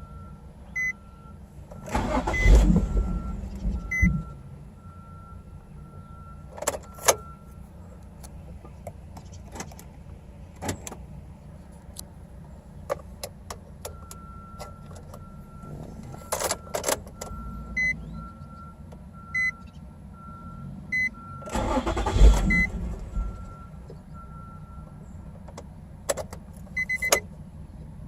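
A 2006 Nissan 350Z's 3.5-litre V6 being cranked by the starter for about two seconds, twice, a couple of seconds in and again about twenty seconds later, without catching: a hard-starting engine. A dashboard warning chime beeps repeatedly between the attempts, with scattered clicks.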